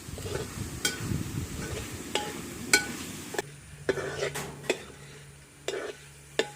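Rabbit meat frying dry in a pan with a little coconut oil, stirred with a spoon that scrapes and clinks against the pan about eight times. The sizzle fades about halfway through while the clinks go on; the meat is about done.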